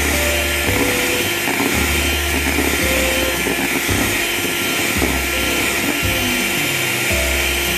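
Electric hand mixer running steadily, its beaters whipping a thick marshmallow mixture of whipped sugar syrup and gelatin. Background music plays underneath.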